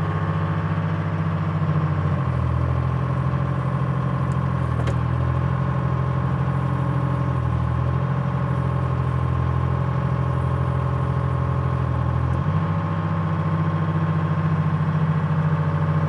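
Engine of a 1978 Dynahoe 160 tractor loader backhoe running steadily. About two seconds in its pitch drops and stays lower for some ten seconds as it takes the load of the hydraulics moving the backhoe boom and bucket, then picks back up.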